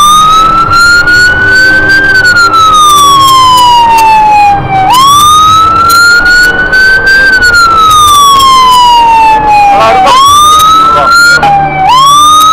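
Fire engine siren wailing, rising quickly and then falling slowly in cycles of about five seconds; near the end the wail cuts back and restarts twice in quick succession.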